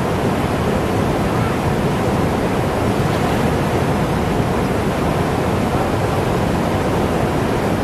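Fast river current rushing over and around rocks: a steady, even wash of water with no breaks.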